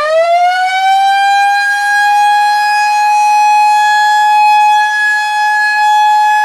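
Electric motor-driven mechanical siren, the Model A, winding up to full pitch in the first second and then holding a loud, steady wail.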